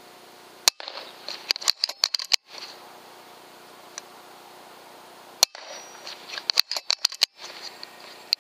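Air rifle being handled: two sharp clicks about four and a half seconds apart, each followed by a quick run of smaller clicks and rattles.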